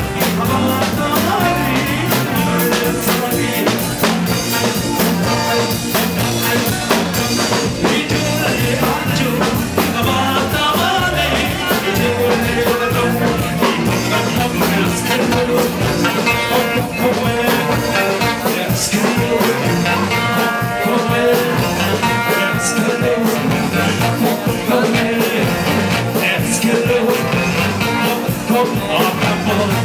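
Live band playing Oromo music: a singer over a steady drum kit beat with keyboards and bass.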